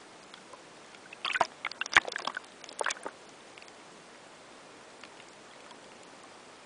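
Underwater crackling: a burst of sharp clicks and crunches between about one and three seconds in, over a faint steady hiss with a few soft ticks.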